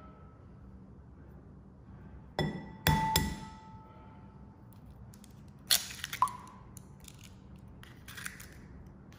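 An egg knocked against the rim of a ceramic bowl three times in quick succession, the bowl ringing briefly after the knocks. A few seconds later come a few sharp clicks of shell against the bowl as the egg is broken open into it.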